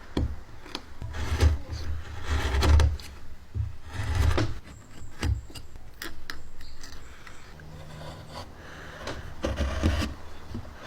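Hand work on wood: irregular rubbing and scraping strokes mixed with sharp knocks and a few dull thuds.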